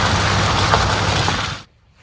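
Vehicle driving, a steady low engine drone under loud road and tyre noise, cutting off abruptly about one and a half seconds in.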